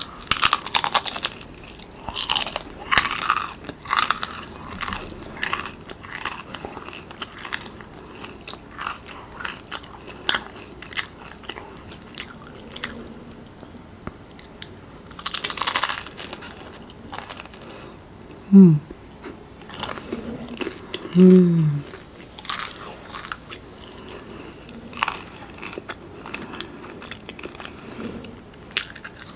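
Close-miked biting and crunching into a crispy fried wonton, then chewing, with sharp crunches scattered throughout. Two brief low hums come about two-thirds of the way through.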